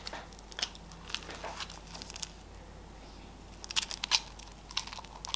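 Foil wrapper of a Kinder Surprise egg crinkling as it is handled, in scattered short crackles with a denser run of sharper crackles near the end.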